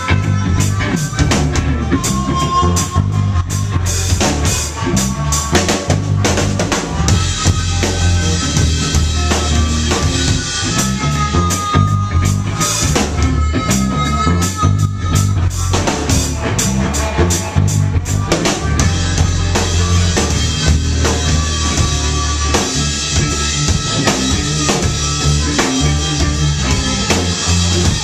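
Live blues-rock band playing: a harmonica soloing through a handheld microphone in held, wavering notes over drum kit, bass guitar and electric guitar.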